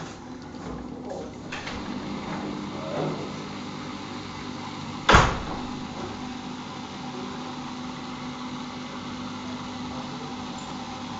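Siemens Siwamat iQ 714 washing machine running with a steady hum, with one sharp knock about five seconds in.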